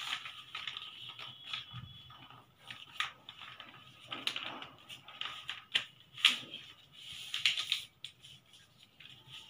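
Large sheet of paper rustling and crinkling as hands fold it and press the creases flat, in irregular bursts with a few sharp crackles about three and six seconds in.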